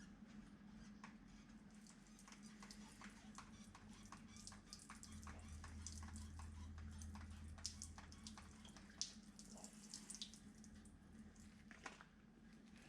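Faint scattered clicks and taps of tools and small parts being handled, over a steady low hum; a deeper hum joins for a few seconds in the middle.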